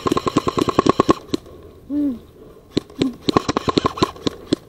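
Airsoft gun firing full-auto: a rapid burst of about a second, a second burst about three seconds in, then a few single shots near the end.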